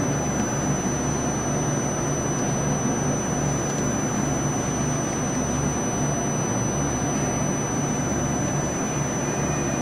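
Okuma Howa Millac 438V CNC vertical machining center running with a steady mechanical hum, with no tool change yet.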